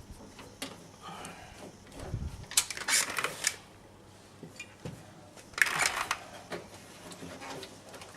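Small hard objects clicking and rattling as they are handled, in two short flurries about three and six seconds in.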